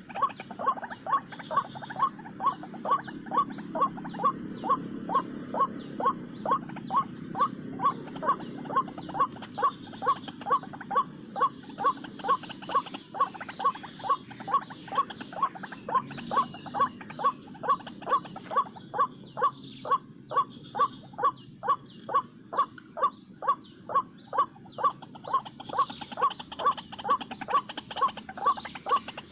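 White-breasted waterhen call, short harsh notes repeated very evenly about two and a half times a second.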